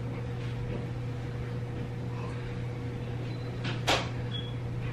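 A steady low hum, with a single sharp click about four seconds in.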